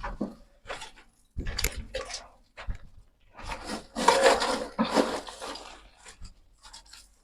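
Dry sawdust and charcoal litter being scraped and shuffled, a run of irregular rasping strokes, loudest about four to five seconds in.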